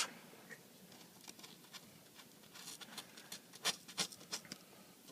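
Razor blade scraping old adhesive off an iPad 3's housing: a run of short, scratchy strokes, thickest between about two and a half and four and a half seconds in.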